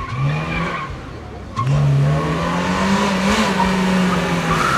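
Classic rally car engine accelerating under load: a short rise in revs, then a louder, longer pull from about a second and a half in, held high with a brief step up near the middle.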